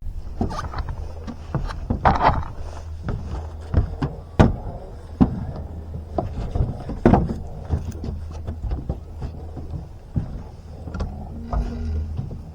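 Boat motor running steadily at a low hum, with irregular sharp knocks and clicks of gear being handled in the boat.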